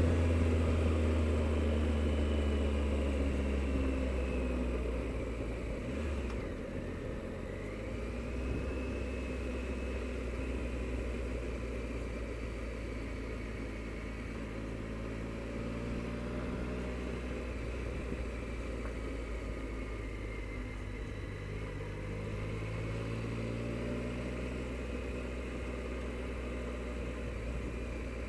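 Triumph Explorer motorcycle's three-cylinder engine under way, its note falling as the bike slows over the first few seconds, then running steadily and rising again as it accelerates about two-thirds of the way through. A strong low rumble of wind lies underneath.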